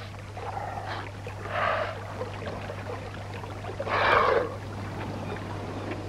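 Shallow rock-pool water splashing twice as a New Zealand sea lion pup moves its head and body through it, once about a second and a half in and again, louder, around four seconds. A steady low hum runs beneath.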